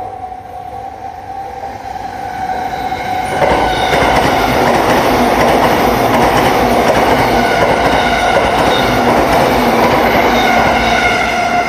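E233 series electric train running on the Chuo Rapid Line, its noise building over the first few seconds and then holding loud and steady. There is a dense rumble of wheels on rail, with a steady whine from the motors and wheels on top.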